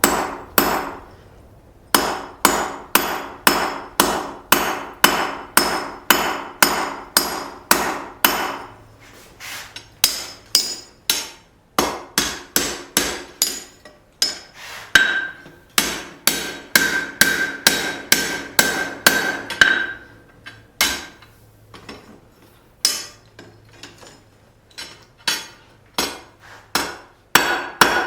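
Hand hammer striking a rivet over and over on a steel plate, peening it to set the pivot rivet of a pair of blacksmith's tongs. The strikes come steadily, about two to three a second, with short pauses between runs, and a clear metallic ring sounds through one run about halfway through.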